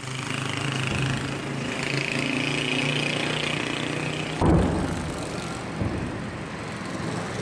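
A distant explosion booms about four and a half seconds in, a sudden thud trailing off into a low rumble. Under it runs a steady engine-like drone.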